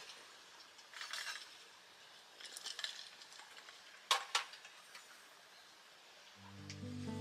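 A stainless steel Kalita gooseneck drip kettle is handled and set down on the metal pot supports of a lit single-burner gas stove, with softer clinks first and a sharp double clink just after four seconds in. The burner hisses faintly beneath, and acoustic guitar music comes in near the end.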